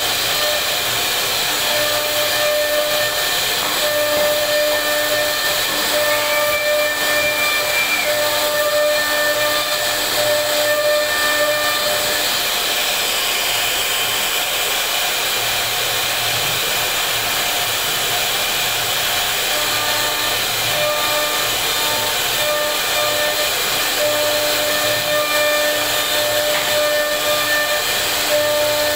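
CNC router spindle carving wood: a steady high hiss of the cutter working through the panel, with a whine that fades in and out every few seconds as the cut changes.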